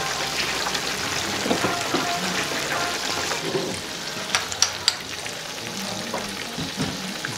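Prawn and aubergine tempura frying in a large flat pan of hot oil, giving a steady sizzling hiss. A few sharp clicks come a little after four seconds in, as wooden chopsticks lift pieces out onto the metal draining rack.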